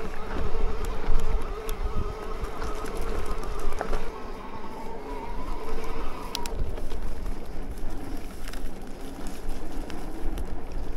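Electric mountain bike's assist motor whining steadily under pedalling, with tyre rumble over a rough track and wind on the microphone; the whine dies away a little past halfway, and a few sharp clicks from the bike rattling come through.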